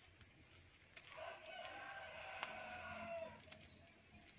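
A rooster crowing once, faint: a single long call of a little over two seconds.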